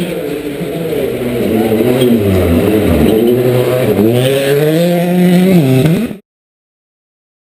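Hyundai i20 WRC rally car's turbocharged four-cylinder engine slowing for a hairpin, its pitch stepping down over the first few seconds. It then revs hard as the car accelerates out, with a gear change near the end, before the sound cuts off abruptly.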